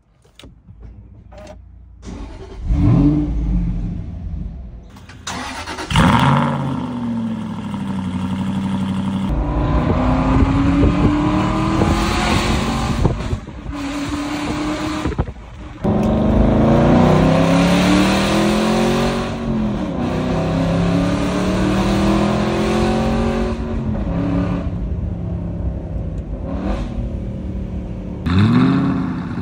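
Straight-piped Aston Martin V8 Vantage V8, heard from inside the cabin. The starter cranks and the engine catches with a sharp rev flare about three seconds in. It then settles and is revved repeatedly, the pitch climbing and falling, with a few abrupt cuts between takes.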